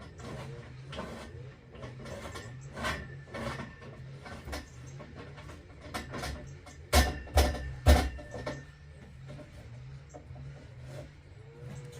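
Building work on roof timbers: scattered knocks and clicks, with three loud knocks in quick succession about seven to eight seconds in, over a steady low hum.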